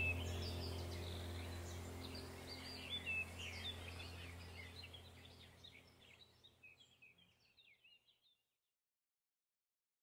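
Faint background track of chirping birdsong over a low, steady drone, fading out to silence about six seconds in.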